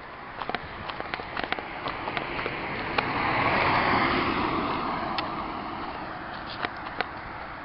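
A rushing noise that swells to its loudest about four seconds in and then fades, over a scatter of sharp clicks.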